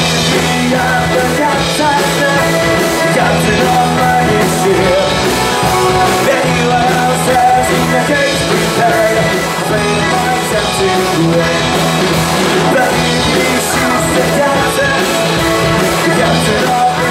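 Live rock band playing a song with accordion, electric and bass guitars and drums, and a male singer singing into the microphone.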